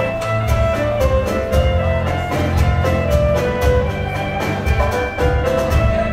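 Live contra dance band playing a dance tune with a steady beat.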